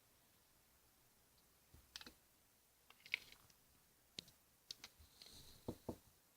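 Scattered light clicks and taps of hard utensils against a hard surface, about eight of them, with a brief scraping hiss about five seconds in, over near silence.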